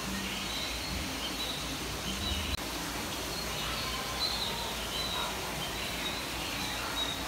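Steady outdoor ambience with an even background hiss and scattered short, high chirps, typical of small birds calling.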